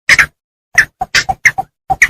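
Bittern calling in a quick, uneven series of short, sharp notes, about eight in two seconds, with dead silence between them.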